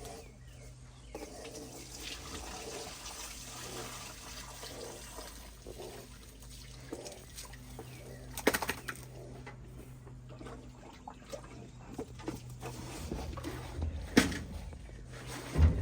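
Water pouring and splashing into a livestock water container, with a few sharp knocks and a steady low hum underneath.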